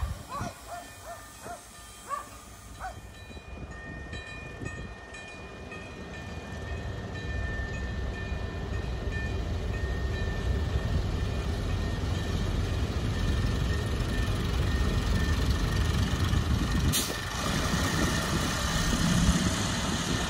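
An ALn 668 diesel railcar running on the line, its engine rumble growing steadily louder with a faint steady whine above it. There is one sharp crack about three-quarters of the way through.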